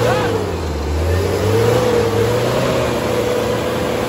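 Off-road 4x4 vehicle's engine running under load, its revs rising and falling slightly.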